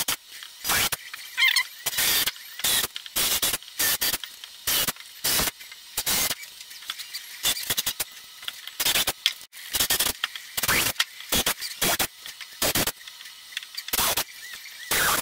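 Cordless drill run in many short trigger bursts, about two a second, as a 5/8-inch Forstner bit cuts shallow counterbores for rivet heads into a UHMW plastic sheet.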